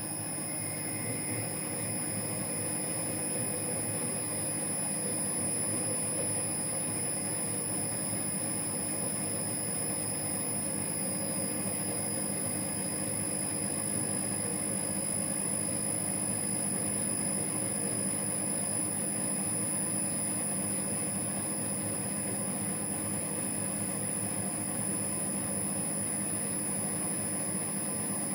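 Metal lathe running under power in screw-cutting feed, a steady whine with several held tones, as an internal threading tool takes the final spring pass through a 5 tpi Acme thread in a bronze nut.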